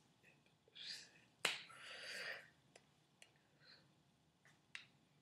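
Faint sounds of hands signing in sign language: a sharp slap of hand against hand about a second and a half in, then a few light taps, with short airy hisses of breath from the signer's mouth.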